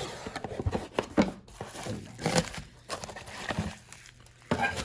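Trading cards and foil card packs being handled on a table: irregular light taps, shuffles and rustles.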